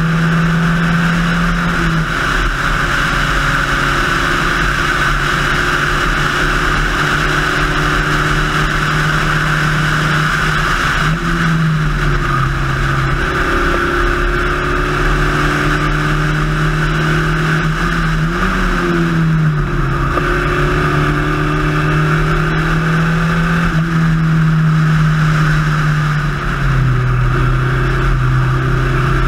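Spec Racer Ford race car engine running hard, heard from the cockpit over a steady rushing noise. Its pitch holds steady for several seconds at a time, then rises and falls a few times as the car changes speed and gear.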